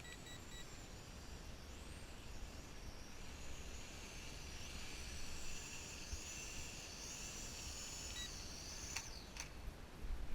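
VISUO XS809HW toy quadcopter's small motors whining high, the pitch wavering up and down with the throttle, then cutting out about nine seconds in, followed by two sharp clicks. Short beeps sound near the start and again about eight seconds in.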